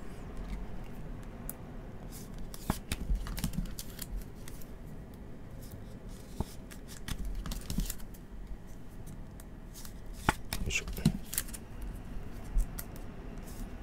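Trading cards in clear rigid plastic toploaders being handled and stacked on a table mat, with scattered light plastic clicks and slides.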